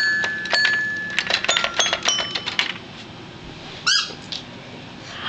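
A rapid run of electronic beeps and chimes at changing pitches, each set off by a click, like buttons pressed on a phone or electronic toy, stopping after a couple of seconds. About four seconds in comes one brief high squeal that rises in pitch.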